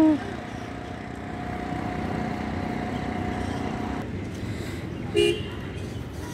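Steady road-traffic noise, with a faint steady engine tone that drops out about four seconds in. A single short toot sounds about five seconds in.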